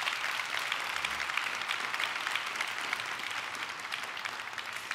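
Audience applauding, many hands clapping, dying away slowly toward the end.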